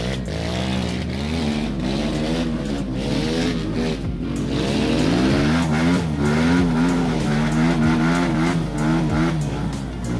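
Dirt bike engine revving up and down again and again as it is worked up a steep muddy rut, its pitch rising and falling every second or so.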